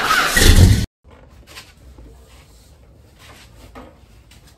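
A loud, full sound cuts off abruptly just under a second in. It gives way to faint, intermittent rubbing and knocking handling noises.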